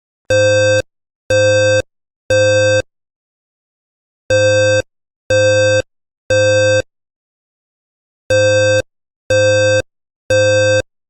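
Fire alarm evacuation tone in the temporal-three pattern: three half-second buzzy beeps one second apart, then a pause, sounding three times over.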